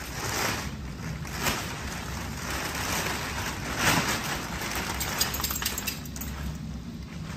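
Foil packing wrap crinkling and rustling as it is tugged and peeled off a large machine, in several swishing pulls, the loudest about four seconds in, then a run of fine crackles.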